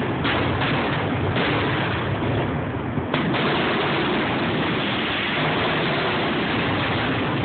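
Fireworks going off close by in a dense, continuous barrage of bangs and crackle that never lets up. A few sharp bangs stand out in the first second or so and again about three seconds in.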